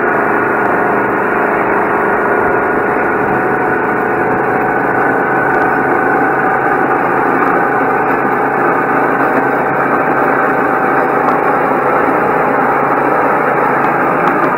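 Go-kart engine running under throttle, recorded from on board the kart, holding a nearly steady pitch as it laps the track.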